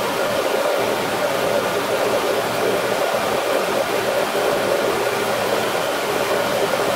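Pot of peach jam at a full rolling boil in a stock pot, giving a steady rushing, hissing noise.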